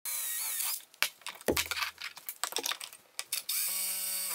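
Power drill boring holes into a solid-surface countertop with a sharp bit at high speed: the motor spins up with a rising whine, the bit cuts with clicks and knocks, and the drill runs steadily again near the end.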